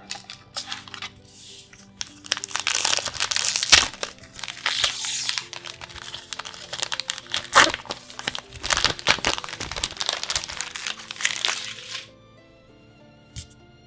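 Foil booster pack wrapper crinkling and crackling as it is handled and torn open, with sharp snaps in the rustle. The crinkling starts about two seconds in and stops about two seconds before the end, over soft background music.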